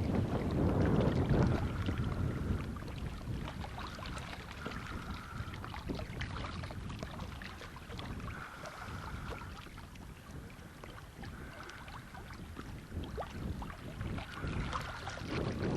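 Strong wind buffeting the microphone in gusts, heaviest near the start and again near the end, easing in between. A faint short high tone recurs every couple of seconds under it.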